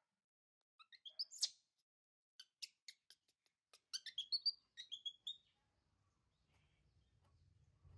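Baby macaque giving short, high-pitched squeaky calls in quick clusters, about a second in and again from about two and a half to five and a half seconds in.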